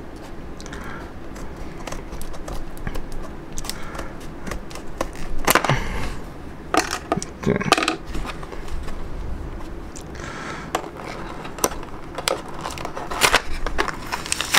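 Plastic blister packaging being cut with kitchen scissors and handled: irregular snips, crackles and scrapes of stiff plastic and card.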